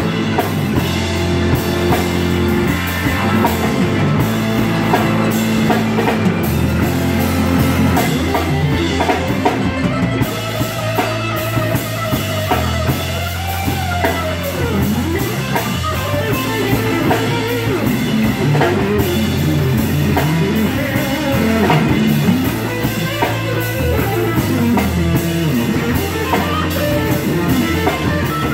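Live rock band playing an instrumental stretch without vocals: a Stratocaster-style electric guitar plays a lead with bending notes over electric bass and drum kit.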